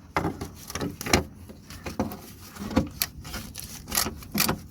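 Hand ratchet working a 10 mm bolt on a handbrake cable bracket clamp: irregular clicks and short scraping strokes of metal on metal.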